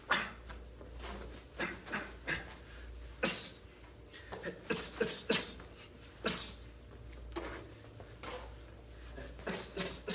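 A boxer's short, sharp exhalations with each punch while shadowboxing, coming in quick clusters of two to four with brief pauses between combinations.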